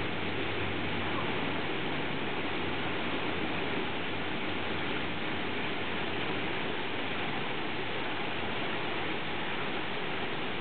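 Heavy thunderstorm rain pouring down in a steady, even hiss.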